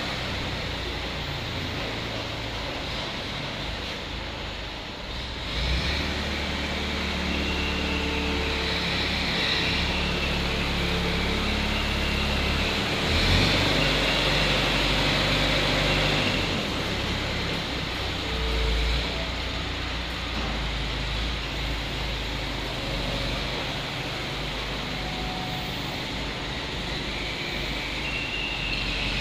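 Diesel engine of an ACE pick-and-carry hydraulic crane running while the boom lifts a one-ton jumbo bag onto a truck. The engine gets louder from about six seconds in until about sixteen seconds in as it works under load, then settles back, with a higher wavering whine over it.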